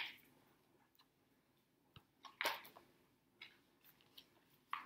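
Faint handling of a hardcover picture book: the pages being opened and turned, with a few short paper rustles and light clicks.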